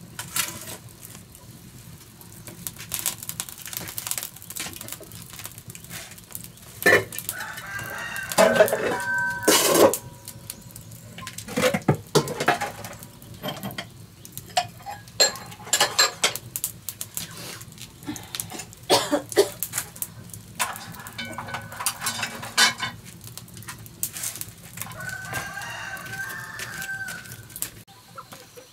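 Rooster crowing a few times, each crow a second or two long, over scattered sharp knocks and clatter.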